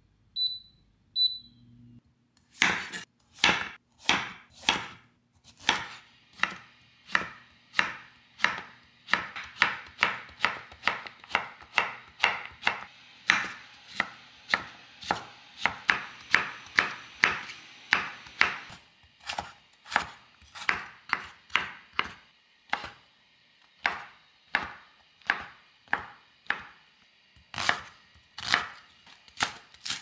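Knife chopping food on a cutting board in a steady rhythm, about two strokes a second, now and then a little faster. Just before the chopping starts there are two short, high electronic beeps.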